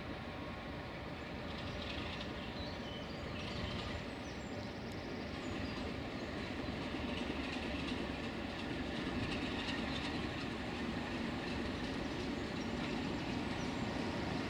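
Class 33 diesel locomotive with its train of empty coaches running along the line, a steady rumble of engine and wheels on rails that slowly grows louder.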